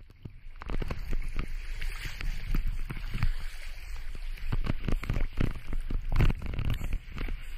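Shallow sea water sloshing and splashing over rocks and against a camera held at the surface, in many short irregular splashes over a low rumble.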